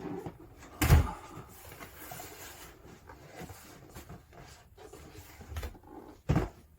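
Cardboard boxes and packaging being handled and lifted out of a kit box: two sharp knocks, about a second in and near the end, with rustling and light shuffling between.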